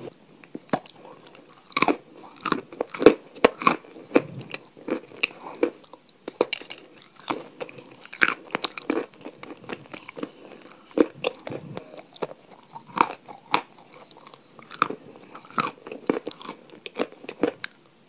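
A person biting and chewing crunchy food, a dense, irregular run of sharp crunches several times a second.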